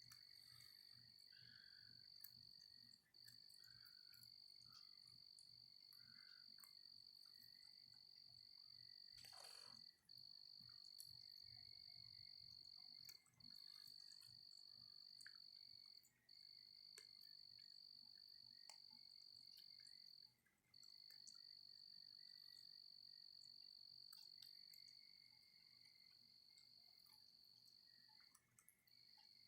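Faint night chorus of trilling insects: a high, steady trill that breaks off briefly every few seconds, over a fainter, lower trill.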